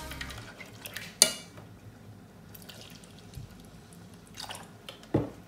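A whisk stirring béchamel in a stainless steel pot, with one sharp metal clink against the pot about a second in. Near the end, milk is poured from a carton into the sauce.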